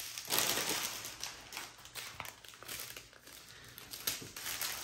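Long strip of small plastic bags holding diamond painting drills crinkling and rustling as it is handled and lifted. It is busiest in the first two seconds, quieter about three seconds in, and picks up again near the end.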